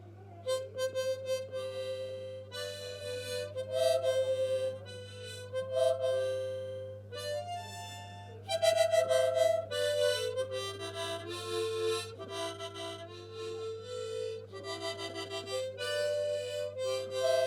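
Harmonica played haltingly by a beginner: a string of held notes and chords, blown and drawn, that never settles into a tune, over a steady low hum.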